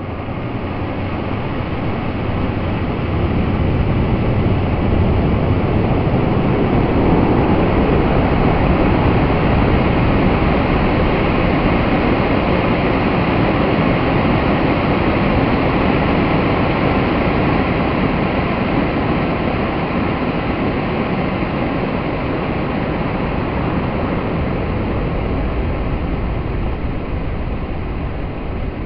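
Steady, deep rushing roar of a solid-fuel model rocket engine burning, drawn out as in slow motion; it swells over the first few seconds and then holds level.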